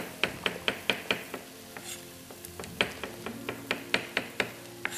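Chef's knife slicing button mushrooms on a wooden cutting board: quick, sharp knocks of the blade on the board, about four a second, pausing briefly about two seconds in and then resuming.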